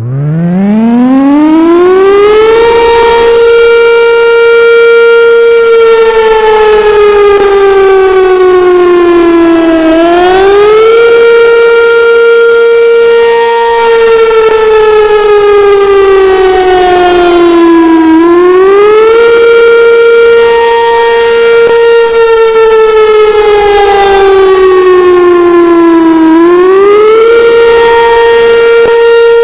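Sentry 7V8 outdoor warning siren winding up from a standstill to a steady single tone over the first few seconds. It then sounds a wail: the pitch holds, sags slowly over several seconds and climbs quickly back, three times, about every eight seconds.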